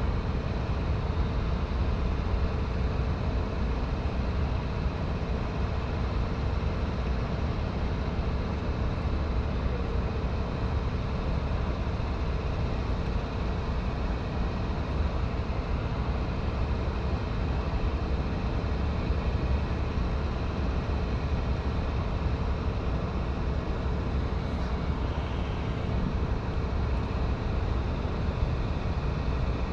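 Steady outdoor rumble and hiss, heaviest at the low end, with no distinct events.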